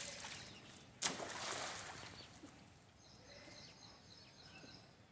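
Outdoor ambience: a sudden rushing noise about a second in that fades away over about a second, then birds chirping in quick, repeated high notes.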